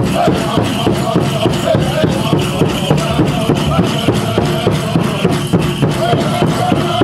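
Powwow drum group playing a chicken dance song: a fast, steady beat on the big drum with men singing over it.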